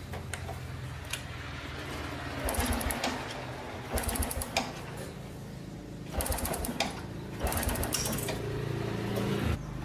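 A small motorised tool running in four short bursts of well under a second each, every burst a fast mechanical rattle.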